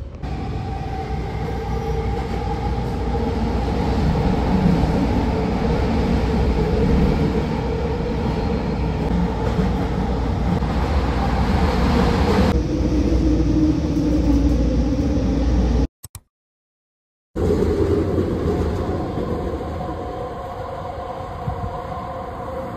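Metro train running: a loud, steady rumble with a droning hum, heard from the platform and then from inside the moving car. The sound changes abruptly about halfway through and drops out completely for a moment about two-thirds of the way in.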